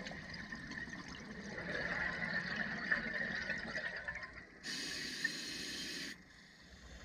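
Scuba breathing heard underwater: bubbly regulator noise, then a steady hiss of air that starts and stops sharply and lasts about a second and a half, near the end.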